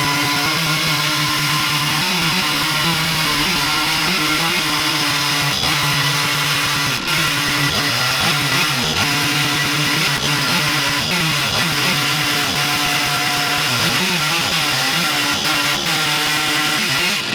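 Stihl MS 460 two-stroke chainsaw running at high revs under load, ripping a log lengthwise through an Alaskan chainsaw mill with a rip chain. Its pitch wavers up and down as the cut loads and eases the engine.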